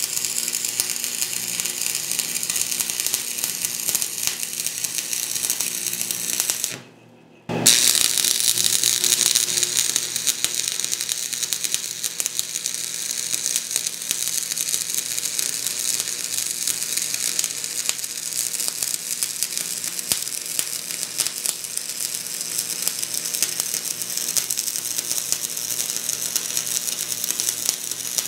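Electric arc welding on steel: a steady, dense crackle from the arc, which stops for under a second about seven seconds in and then strikes up again.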